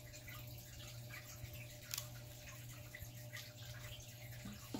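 Faint handling noise: a few small clicks and light rustles as a plastic plug-in power adapter and its cord are handled and set down, over a steady low room hum. The clearest click comes about two seconds in.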